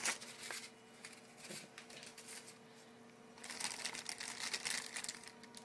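Rustling and crinkling of the packaging wrap as a knife is unwrapped and lifted from its box: a short burst at the start, then a longer stretch of rustling from about halfway in.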